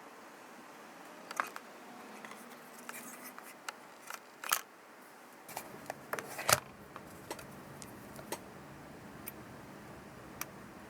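Scattered light clicks and taps of small parts and tools being handled, with two sharper taps about halfway through.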